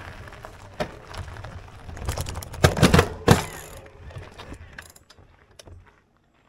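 E-bike ride on a gravel and dirt forest trail: wind on the microphone with the rattle and knocks of the bike over bumps, a cluster of heavy knocks about three seconds in, then dying down to faint ticks as the bike slows to a stop.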